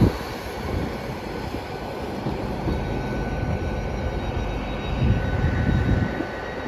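Transport for Wales Class 197 diesel multiple unit's engines running in a steady drone, with a faint high whine over it.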